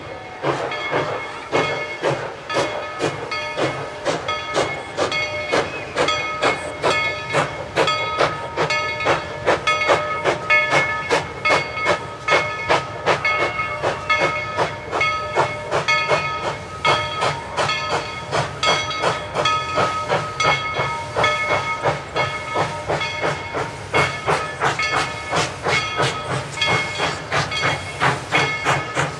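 Tweetsie Railroad's No. 190, a narrow-gauge 2-8-2 steam locomotive, working along with steam hissing and a regular beat of about two strokes a second.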